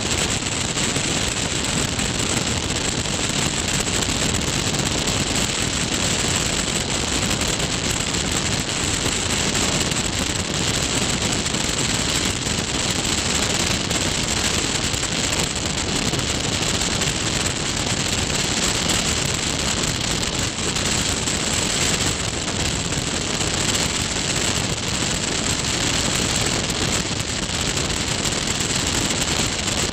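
Steady rush of airflow and engine noise from a Tecnam P2002 Sierra light aircraft descending on approach to land, heard through a camera mounted outside under the wing, so wind on the microphone dominates.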